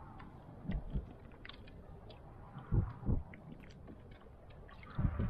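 Water knocking against the hull of a small outrigger canoe: a few dull low thumps, with faint small ticks in between over a low hiss as a handline is hauled in.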